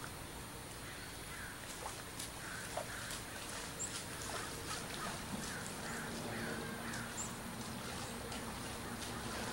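Scattered bird calls: short chirps and a brief high note that repeats about every three and a half seconds, over faint steady background noise.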